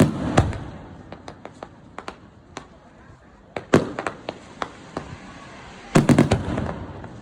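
Aerial fireworks bursting: a cluster of bangs at the start, one loud bang about three and a half seconds in, and another dense cluster around six seconds in, each cluster trailed by a low rumble, with smaller crackling reports in between.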